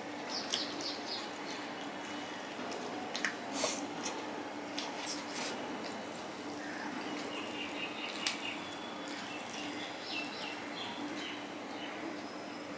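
Fingers picking through fried hilsa and mixing rice on a steel plate: soft wet squishing with scattered clicks, the sharpest a few seconds in and again about eight seconds in, over a faint steady hum.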